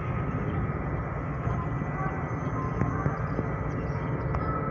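Steady low rumble of a ship's diesel engines running while the ship comes alongside the quay, with a few faint clicks over it.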